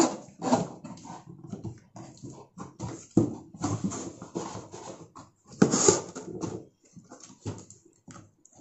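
Cardboard box flaps being pulled free of their locking tabs and folded open by hand, with irregular rustling and scraping. The loudest scrape comes a little past halfway.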